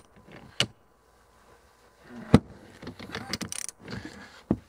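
Ratchet wrench and socket working a hose fitting on a hydraulic top link: scattered metal clicks and clinks, the sharpest about two seconds in.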